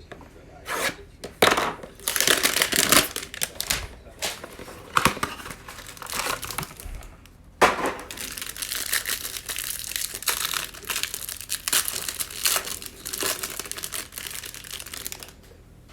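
Plastic wrapping on trading card packs being torn open and crinkled by hand: a run of crackling and crinkling, with sharp loud rips about one and a half and seven and a half seconds in.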